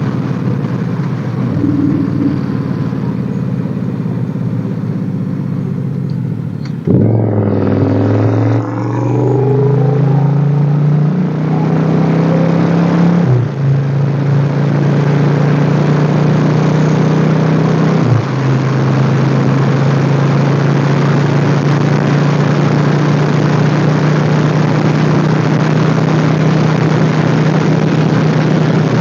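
Motorcycle engine running at road speed under a heavy rush of wind noise. About seven seconds in the sound jumps louder and the engine pitch shifts, and there are short breaks in the engine note about halfway through and again a few seconds later, like gear changes.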